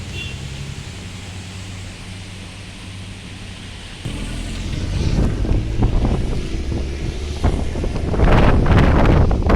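Storm wind buffeting the microphone. It sets in about four seconds in over a low steady hum and comes in louder gusts near the end.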